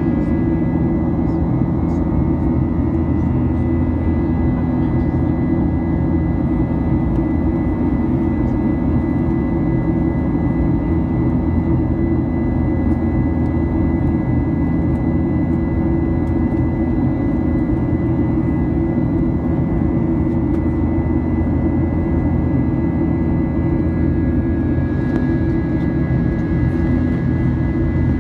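Jet airliner cabin noise during the climb after takeoff, heard from inside the passenger cabin: a steady low engine and airflow rumble with a few thin, steady high whines over it.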